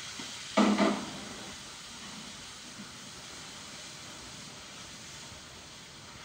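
Steady hiss of a pot cooking on a lit gas stove, with a brief loud knock that rings for about half a second, a little over half a second in.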